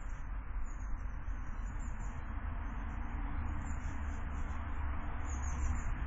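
Outdoor garden ambience: a steady low rumble with faint, high-pitched bird chirps coming and going.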